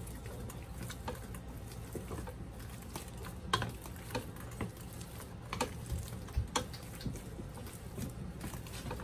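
Boiled potatoes being mashed in a pot with a black plastic potato masher: irregular soft knocks and squishes as the masher presses down and taps the pot, the loudest knock about three and a half seconds in.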